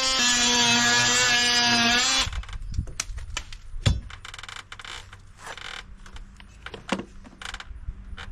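An electric power tool runs at a steady high whine, its pitch dipping slightly under load, and stops about two seconds in. Scattered clicks and knocks follow, with one sharper knock near the middle.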